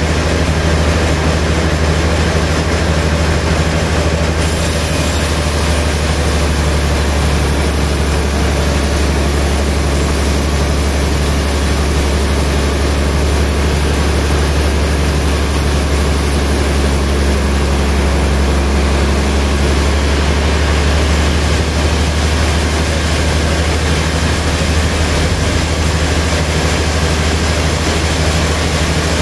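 Large sawmill band saw running with a steady, loud low drone.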